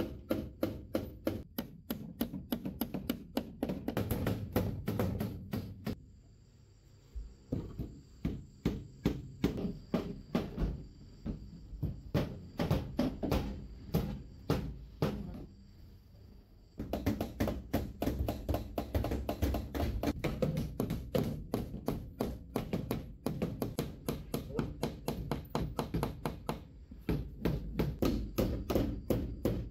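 Background music with a steady, fast percussive beat, which thins out for about ten seconds in the middle.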